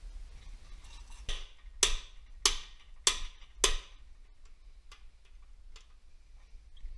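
Five short, sharp hisses about half a second apart, typical of quick squirts from an aerosol can of PB Blaster penetrating oil.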